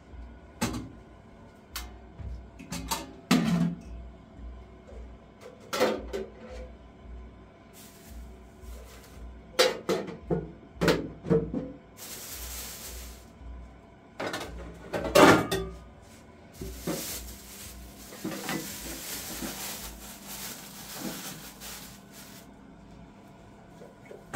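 Metal pots, bowls and lids knocking and clattering as they are picked up and set down, in a string of sharp separate knocks with a short ring, the loudest about 15 seconds in. A plastic bag rustles in between, about 12 seconds in and again from about 17 to 22 seconds.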